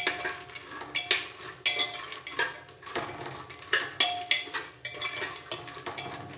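A spoon scraping and clinking against the inside of a pressure cooker while makhana (fox nuts) are stirred and roasted in ghee, with irregular sharp clinks several times a second.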